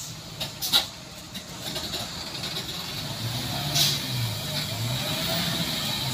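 Diesel engine of a dump truck pulling slowly at low revs, its note rising and falling as the driver works the throttle and growing louder as the truck draws near, as it crawls along a slick, muddy track. Short sharp hisses of air, like air-brake releases, come about a second in and again just before the four-second mark.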